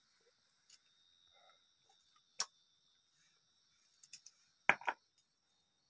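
Sparse clicks and light knocks of hands handling ingredients and plastic bags on a mat. The loudest is a quick double knock near the end. Underneath is a faint, steady high hum.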